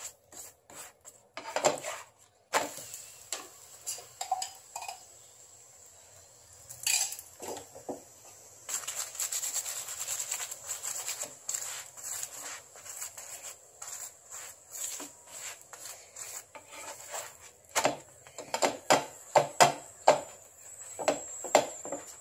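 Wooden spatula pressing and rubbing a roti against a nonstick tawa in repeated short scrapes and taps. The strokes become quicker and louder near the end.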